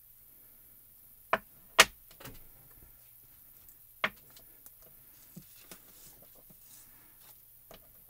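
Clear acrylic stamping block knocking and clicking against the work surface as it is stamped down, lifted and set aside: a few sharp clicks, the loudest about two seconds in, with fainter taps later.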